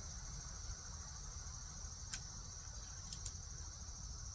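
Steady high-pitched insect chirring, with a few light clicks about two and three seconds in as the saw chain is handled.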